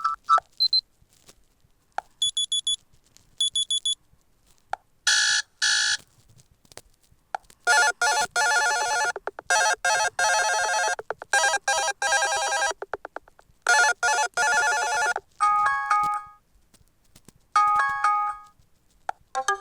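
Fly FS458 Stratus 7 mobile phone playing its built-in ringtones and alert tones through its speaker, one after another. First a brief high beep and two short high chimes, then longer electronic melodies lasting a second to several seconds each. Each stops suddenly, with a short silence before the next.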